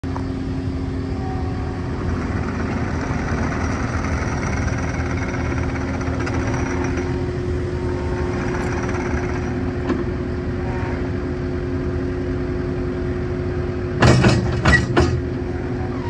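Takeuchi TL8 compact track loader's Kubota turbo-diesel engine running steadily while the machine drives on its rubber tracks and raises its bucket. Near the end, a brief loud burst of noise lasting about a second stands out over the engine.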